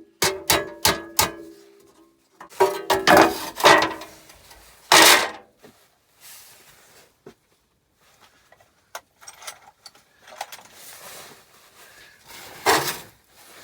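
Engineer's hammer striking an old metal-headed chisel to knock aluminium rivets off aluminium checker plate: about five quick ringing blows at the start. Then louder clattering of metal a few seconds in, and lighter knocks and handling toward the end.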